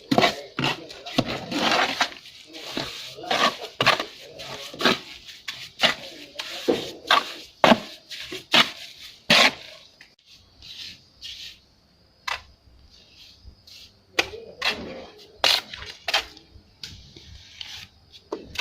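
Steel trowel working cement render on a wall: a run of sharp scrapes and clacks, one or two a second, that thin out about halfway through and pick up again a few seconds before the end.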